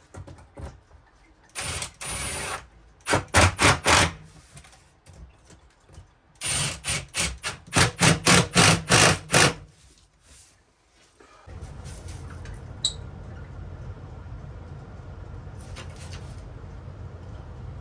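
Cordless power drill or driver run in two spells: each a short steady run followed by a quick string of trigger pulses, about four to five a second. A steady low hum sets in a little past halfway and runs on.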